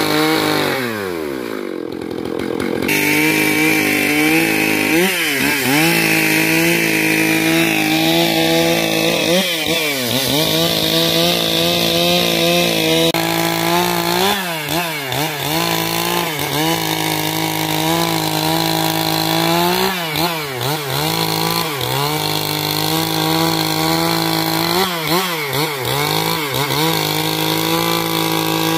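Stihl MS 661 two-stroke chainsaw running at full throttle while ripping lengthwise through a log to cut boards. Near the start the engine eases off and drops in pitch, returning to full speed about three seconds in; after that its pitch dips briefly under load and recovers every few seconds.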